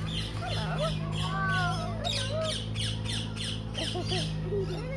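Several birds calling at once: rapid repeated high chirps about three times a second, with wavering whistled squawks lower in pitch, over a steady low hum.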